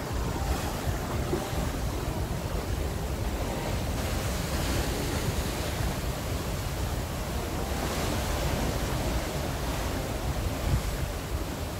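Sea water rushing and churning white along the hull of a moving cruise ship, a steady wash that swells a couple of times, with wind buffeting the microphone.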